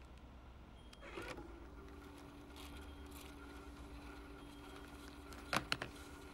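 Video cassette recorder being worked by remote: a short whirring clunk about a second in as the tape transport engages, then a faint steady hum while the tape winds forward. Near the end, a quick cluster of three sharp clicks.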